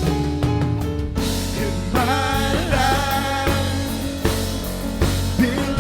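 Worship band playing a rock-style praise song with drum kit, and a voice singing a melody from about two seconds in.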